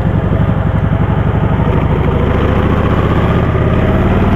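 Kawasaki Vulcan 1700 Voyager's V-twin engine running while the motorcycle is ridden on the road. The engine pulse quickens slightly near the end.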